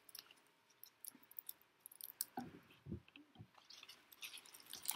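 Faint, scattered crackles and clicks of dry leaves and paper being handled and pressed down, with a couple of soft low thumps about halfway through.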